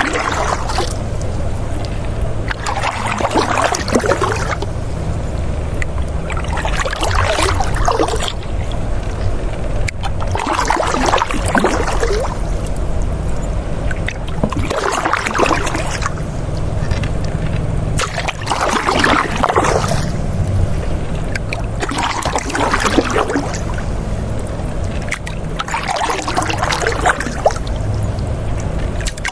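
River water flowing, with a splashing, gurgling surge about every four seconds over a steady low rumble.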